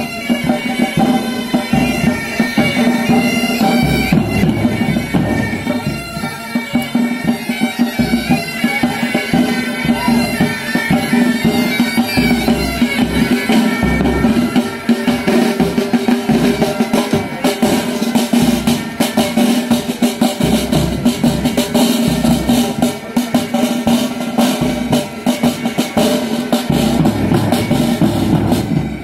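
A military pipe band playing: bagpipes sounding their steady drone under the chanter melody, with snare drums and a bass drum keeping the beat. The drumming becomes busier about halfway through.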